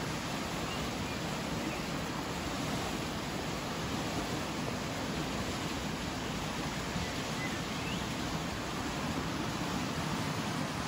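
Fast-flowing alpine river running high, a steady low rushing of water with no breaks.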